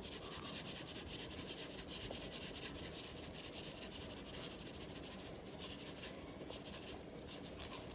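Hands rubbing seasoning into raw oxtails, a quiet run of quick, steady rubbing strokes that thins out near the end.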